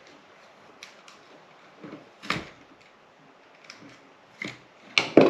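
A utility knife cutting fiberglass rope gasket, with small handling clicks and a few sharp knocks on a workbench, the loudest about two seconds in and a quick cluster near the end.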